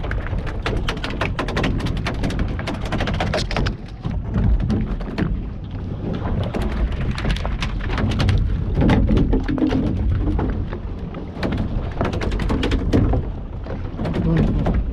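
Rapid, irregular knocks and thuds over a steady low rumble.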